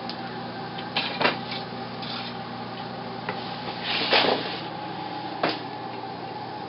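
Wooden floor loom in use: a few sharp wooden clacks and knocks, with a longer swishing clatter about four seconds in, over a low steady hum.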